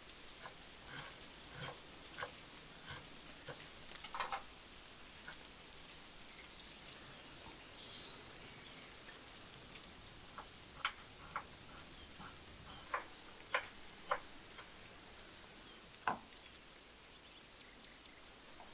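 Irregular light clicks and taps of food being prepared by hand, over a faint outdoor hiss. A short high bird chirp comes about eight seconds in.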